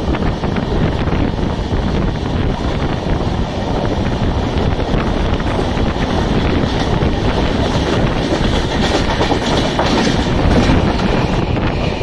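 LHB passenger coaches running fast over the track, heard from an open door: a steady rush of wheel and rail noise with wind on the microphone. The clicks of wheels over rail joints and points grow more frequent in the second half.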